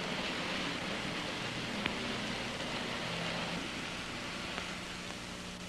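Steady hiss from an old film soundtrack with a faint low hum underneath, and a single faint click about two seconds in.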